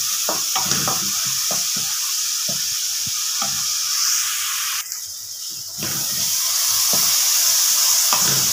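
Crushed small onions frying in hot oil in a metal kadai, with a steady sizzle and a wooden spoon scraping and tapping against the pan as it stirs. The sizzle drops away briefly for about a second near the middle.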